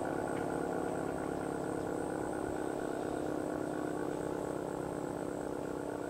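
ACA Cyclone 120 omnidirectional storm siren winding down after its test: a steady low tone with several overtones, slowly fading.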